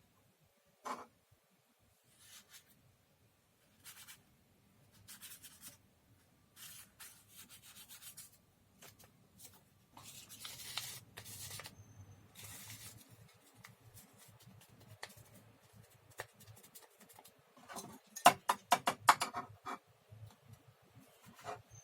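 Intermittent rubbing and scraping as a small metal router plane is handled, with a quick run of sharp clicks and knocks near the end.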